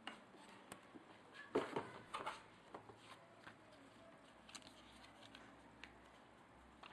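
Faint, scattered clicks and knocks of small hard objects being handled, loudest in a short cluster about a second and a half in.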